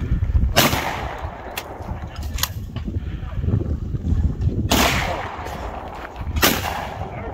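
Break-action shotgun firing at skeet: three sharp reports, one about half a second in, then two more near the end, a little under two seconds apart, with a few lighter clicks between them.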